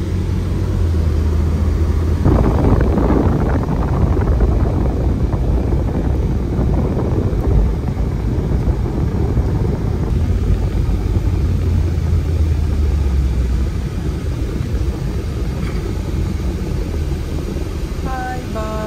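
Porsche's engine and road noise heard inside the cabin while driving: a steady low drone that swells sharply about two seconds in as the car speeds up, then eases slightly near the end.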